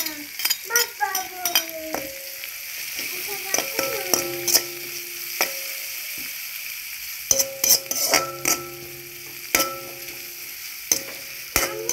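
Onions, garlic, dried chillies and curry leaves sizzling in hot oil in a large metal wok, with a metal spoon stirring and knocking against the pan. Several knocks leave the wok ringing briefly.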